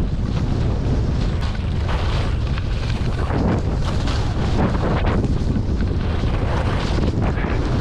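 Wind buffeting an action camera's microphone while skiing downhill, a steady heavy rumble. Swells of hiss every second or so come from the skis scraping the snow through turns.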